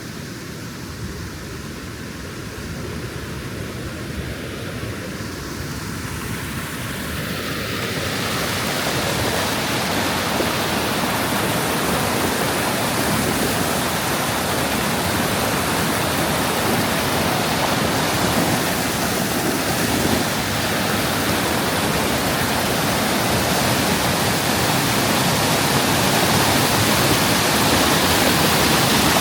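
Waterfall: a steady rush of falling water that grows louder over the first eight seconds or so, then holds steady.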